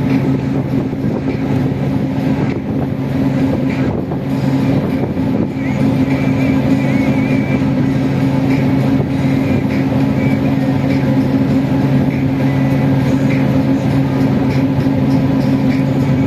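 Steady low drone of a sightseeing motor ship's engine, holding one pitch, over an even rushing noise.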